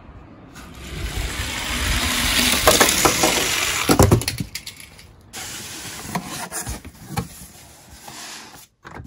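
Die-cast toy cars rolling down a wooden ramp, a rumbling rush that builds over the first few seconds and ends in a cluster of clicks and clatters about four seconds in. Quieter scattered knocks follow.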